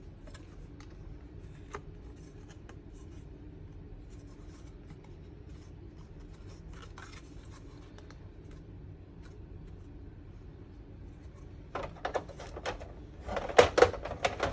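Plastic diorama window pieces being handled and pushed onto their pegs: faint scattered ticks at first, then a quick run of louder plastic clicks and knocks near the end.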